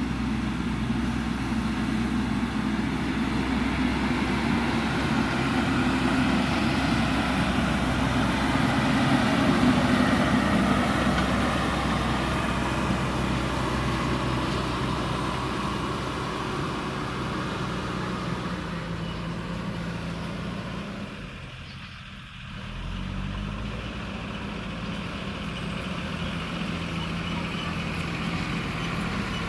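JCB backhoe loader's diesel engine running steadily under working load. It grows louder for a few seconds about a third of the way in, then drops briefly about two-thirds through before running steadily again.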